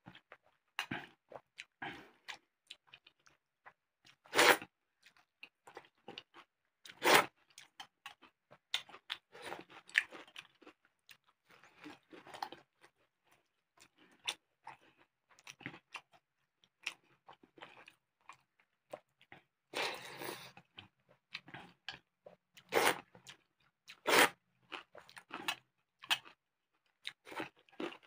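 Close-miked eating: a person chewing and crunching food in irregular bursts, with several sharp, louder crunchy bites, about 4 and 7 seconds in and twice more near the end.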